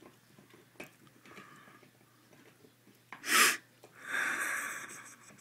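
A person's breath sounds: a short, loud breathy burst about three seconds in, then a longer breathy exhale that fades away over about a second.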